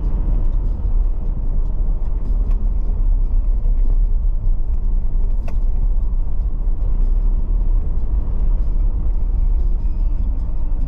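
Car driving over a sandy, bumpy dirt track, heard from inside the cabin: a steady low rumble of engine and tyres, with small clicks and rattles scattered throughout and a sharper click about halfway through.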